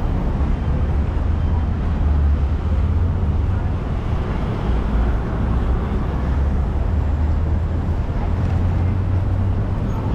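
City pedestrian-street ambience recorded while walking: a steady low rumble with indistinct voices of passers-by and no single sound standing out.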